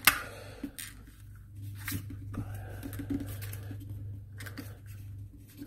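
Handling noise of a Baofeng UV-5R handheld radio being worked apart: a sharp click just after the start, then a few lighter clicks and faint scraping as the metal chassis is pushed out of the plastic housing.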